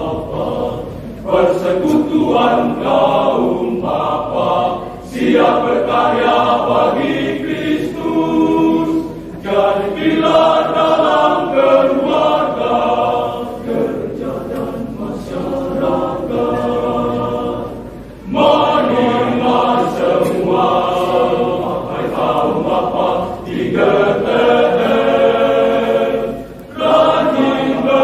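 A men's church choir singing together, in long phrases separated by brief breaks.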